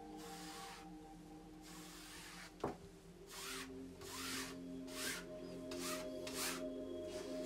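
A hand and then a wide paintbrush scrubbing acrylic paint across a canvas in repeated back-and-forth strokes, with one sharp tap a little over a third of the way in. Soft ambient music with steady held tones plays underneath.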